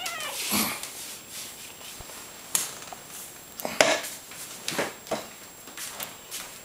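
A cat playing with a string toy on a hardwood floor: irregular sharp taps and scuffles as paws and toy hit the wood, the loudest a little past the middle.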